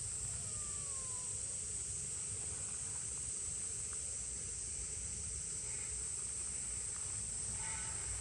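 Steady high-pitched insect buzzing over a low outdoor rumble, with a faint falling kitten meow about half a second in and another faint call near the end.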